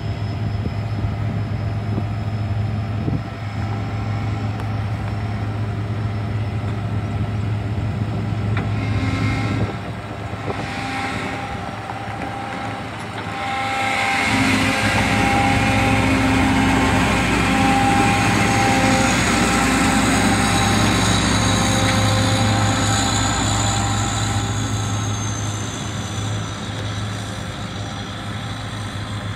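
Diesel engine of a John Deere 9670 STS combine running steadily. From about halfway through it gets louder and fuller as the combine moves off.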